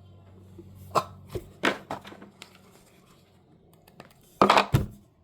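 Handling noises of a squishy toy and its wrapping: a few short rustles and clicks, then a louder burst of rustling with a thud about four and a half seconds in.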